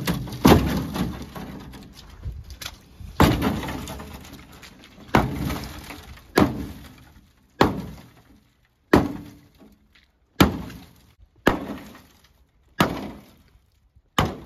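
The rusted sheet-steel rear quarter panel of a 1973 Plymouth Scamp being kicked and struck over and over to break it off the body. There are about a dozen sharp crashing blows, roughly one every second or so, each with a brief rattling ring of loose, rotten metal.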